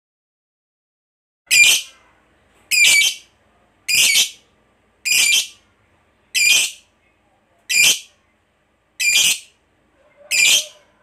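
Lovebird giving a series of short, high-pitched calls, eight in all, evenly spaced about one every 1.3 seconds, starting about a second and a half in.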